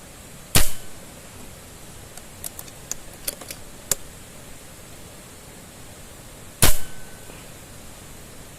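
Two sharp gunshots about six seconds apart, with a run of small clicks between them, over the steady rush of a waterfall.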